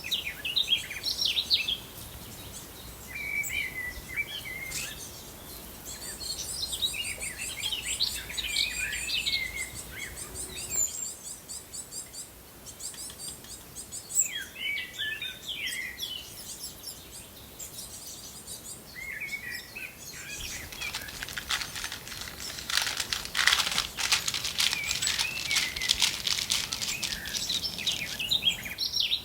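Small songbirds chirping and twittering in short phrases. In the last third a dense run of rapid clicking and rustling comes in and becomes the loudest sound.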